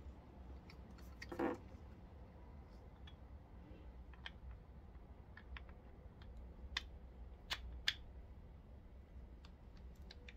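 Faint, sparse clicks and light metal knocks of small steel gear parts being handled and fitted onto a pit bike's clutch basket. A short scrape comes about a second and a half in, and three sharper clicks come between about seven and eight seconds in.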